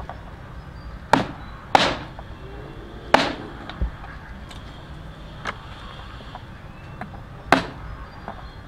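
Cleaver chopping pineapple pieces on a cutting board: four sharp strikes at uneven intervals, with a couple of lighter taps between them.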